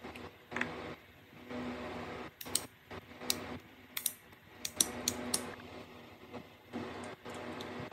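Sharp plastic clicks from handling a small power-tool trigger switch, several in quick succession between about two and five and a half seconds in, over a low hum that comes and goes.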